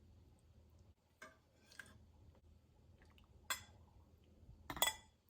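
Cutlery and dishes clinking: about four short, light clinks, the loudest near the end.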